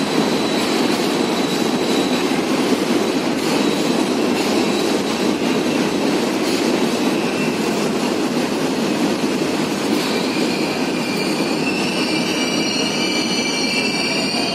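Sri Lanka Railways Class M7 diesel-electric locomotive, GM 8-645E two-stroke V8, approaching with its train: a steady, loud running noise, joined about ten seconds in by several high, wavering squeals of the wheels on the curving track.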